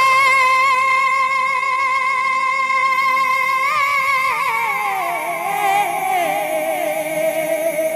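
A woman singing a Jhumur folk song through a microphone and PA. She holds one long high note for about three and a half seconds, then breaks into a wavering, falling run and settles on a lower held note.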